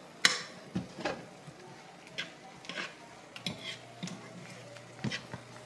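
Cooking utensils tapping and scraping against frying pans in light, irregular clicks, as a silicone spatula works around the edges of an omelet in a nonstick skillet and a second pan of vegetables is stirred. The sharpest click comes just after the start, over a faint steady hum.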